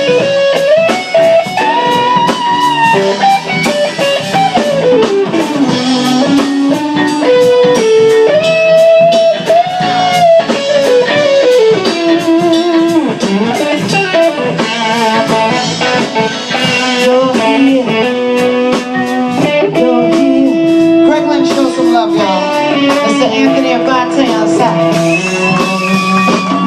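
Live band playing an instrumental break: a lead electric guitar solo with sliding, bending notes over a steady drum beat.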